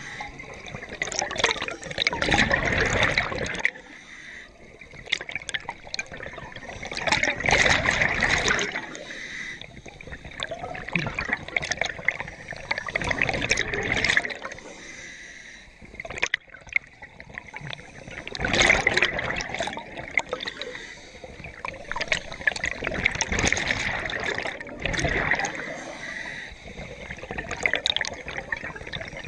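Scuba regulator breathing heard underwater: rushes of exhaled bubbles, about six in all, one every five seconds or so, with quieter stretches between breaths.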